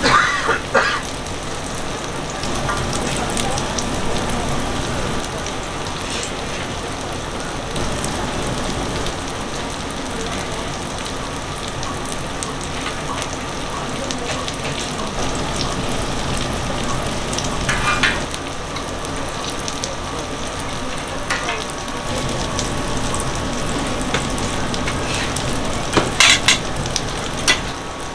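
Oil sizzling on a flat griddle as dongeurang-ttaeng patties and a mung bean pancake fry. A few sharp clicks and scrapes of metal tongs and spatula on the griddle stand out, the loudest near the end.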